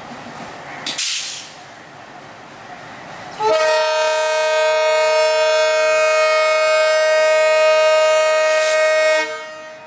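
Diesel freight locomotive sounding its horn in one long, loud, steady blast of about six seconds, starting about three and a half seconds in and cutting off near the end. Before it, the engine rumbles low as the train rolls in, with a short hiss about a second in.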